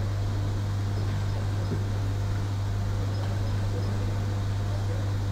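Steady low electrical hum with an even background hiss, unchanging throughout.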